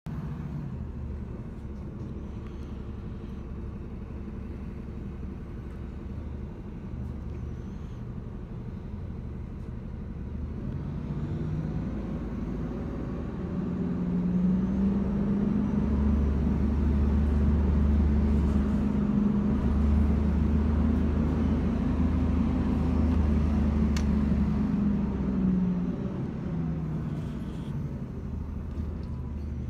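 City transit bus engine heard from inside the bus, running at a low steady drone, then pulling harder and louder for about twelve seconds in the middle before easing back near the end as the bus moves along.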